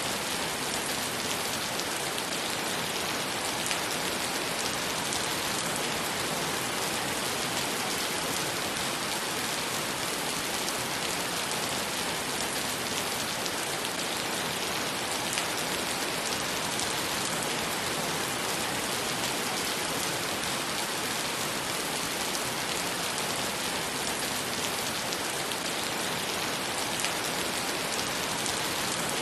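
Rain falling steadily on wet paved ground and puddles: an even hiss of many drops, with the odd single splash standing out.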